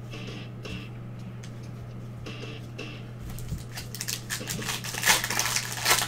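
Foil wrapper of a trading card pack crinkling and tearing as it is ripped open by gloved hands, starting about three seconds in and growing louder toward the end, over a steady low hum.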